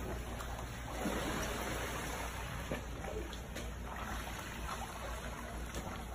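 Backyard swimming pool water sloshing and splashing, running off over the edge across the wet concrete deck as the pool is shaken by an earthquake. A steady trickling, rushing water sound.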